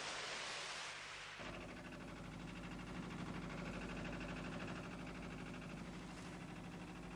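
Sea surf washing on rocks, then, about a second and a half in, the steady drone of a boat's engine running on open water.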